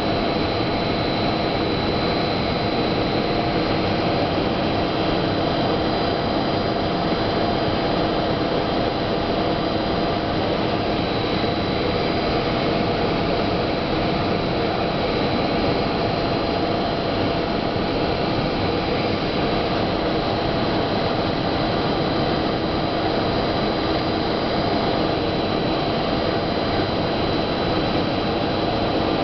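Horizontal XPE foam foaming oven running: a steady, unchanging machine roar with constant humming tones in it.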